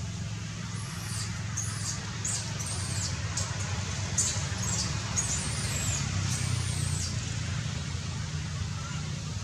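Baby macaque giving a string of short, very high-pitched squealing cries, each rising and falling, about ten in quick succession before stopping. A steady low rumble runs underneath.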